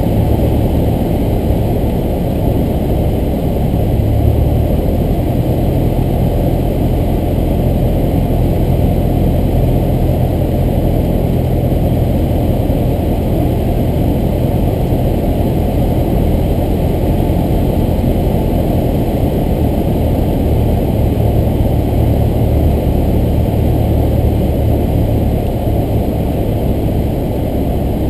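Cessna 172's piston engine and propeller droning steadily inside the cabin as the plane descends on final approach, the low hum swelling slightly a few seconds in and again near the end.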